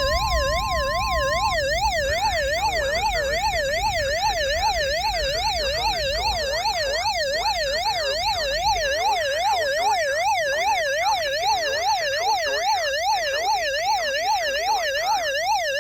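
Electronic siren-like alert tone of an emergency alert broadcast, warbling rapidly up and down about two and a half times a second. A steady tone sounds under it for about the first second and a half.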